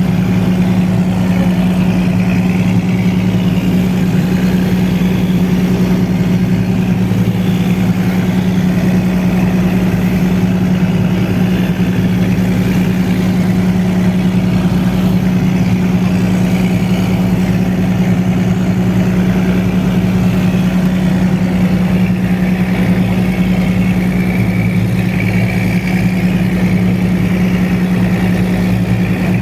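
An engine running steadily at an unchanging speed, a constant low hum.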